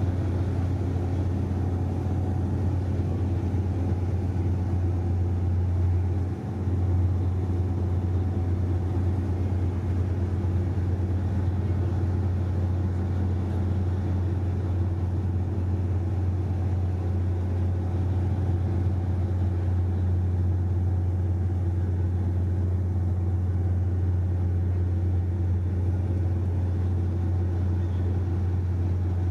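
Steady low drone of a patrol ship's engines and machinery, felt on deck as it runs slowly into harbour, with a brief dip about six seconds in.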